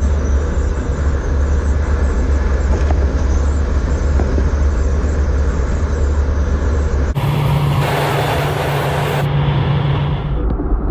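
Motor vehicle running on the road, a loud steady low rumble with road noise. About seven seconds in it cuts abruptly to a different stretch with a steady hum and a brighter hiss.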